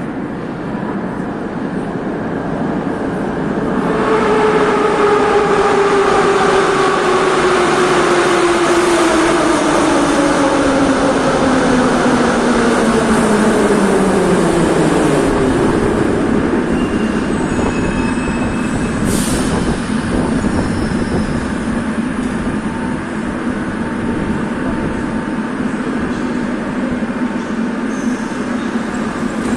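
Metro train pulling into the station: its motor whine falls steadily in pitch for about twelve seconds as it brakes, then the stopped train hums steadily, with a brief high hiss about nineteen seconds in.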